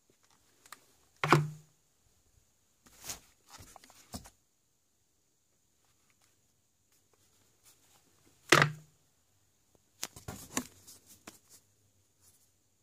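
Firework battery cakes being handled and set down among other fireworks in a cardboard box. There are two sharp knocks with a dull thud, about a second in and again past eight seconds, and shorter clatters and rustling of plastic-wrapped packs between them.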